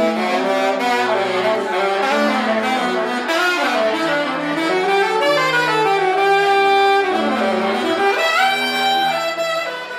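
Instrumental music: several pitched instruments play moving melodic lines together, with the lines sliding up and down in pitch.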